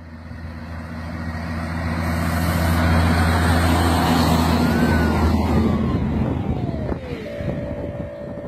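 Heavy diesel semi-truck pulling an oversize load on a low-bed trailer, approaching and passing close by. Its engine and tyres grow louder to a peak a few seconds in, then fade, with a high whine that drops in pitch as it goes by. A steady tone starts near the end.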